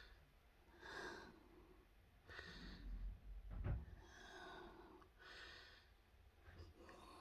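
Faint, soft breathing close to the microphone, a breath about every second and a half, with one small knock a little past the middle.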